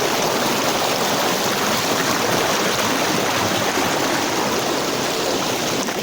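Steady rush of a rocky river's water flowing over stones.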